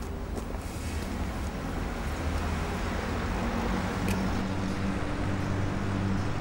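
Steady outdoor street ambience of passing traffic, with a faint click about four seconds in.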